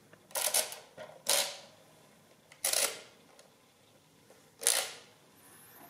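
Contex A mechanical adding machines being cleared: four short, crisp mechanical clatters, a second or two apart. Each comes from pressing or releasing the clearing button on the left, which runs the number wheels up to nines and then carries them over to zero.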